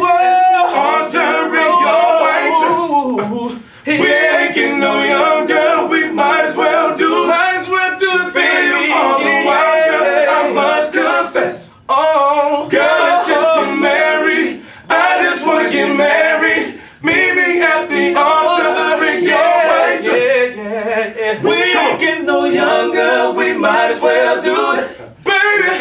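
Four-man male R&B vocal group singing a cappella in close harmony, with no instruments. The phrases are broken by a few short pauses for breath.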